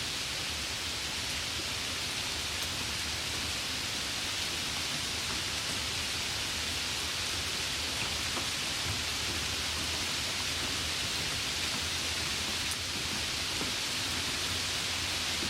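Light rain falling steadily: an even hiss of rain with a few faint individual drops ticking.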